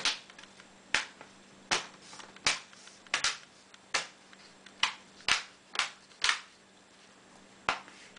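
Plastic screen bezel of a Dell Inspiron 15 5547 laptop being pressed back onto the display lid, its clips snapping into place: about a dozen sharp clicks, roughly one every half second to second, with a pause near the end.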